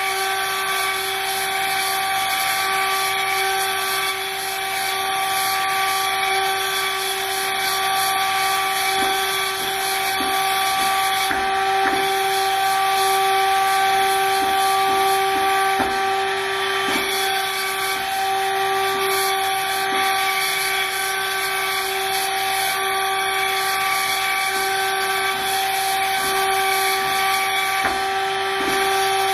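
Machining spindle on a parallel-kinematic robot cutting a workpiece: a constant whine with overtones over a steady hiss of cutting, with a few faint ticks in the middle.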